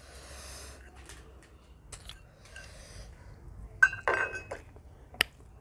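Eating sounds with metal tableware: a small steel bowl tipped over rice on a metal plate, with a soft hiss in the first second, then a sharp metallic clink with a brief ring near four seconds in, the loudest moment, and another short click about five seconds in.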